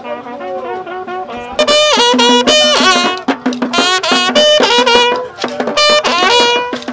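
A brass horn blown in loud repeated phrases, starting about a second and a half in, with a small wooden box beaten with a stick alongside.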